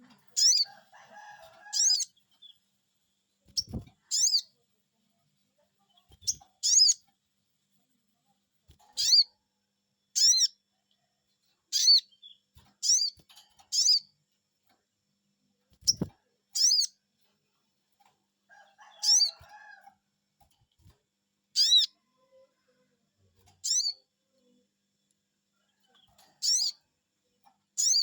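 Sogon bird giving short, high 'cuiit' calls, repeated every one to two seconds and sometimes in quick pairs, as a lure call meant to set other sogon birds singing. Two dull low thumps and a couple of brief scratchy rustles come in between.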